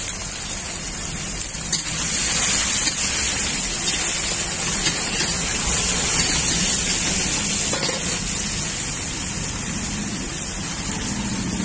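Boiled egg pieces sizzling in hot oil and masala in a large iron wok, a steady hiss that grows louder about two seconds in, with a few light clicks of a metal spatula.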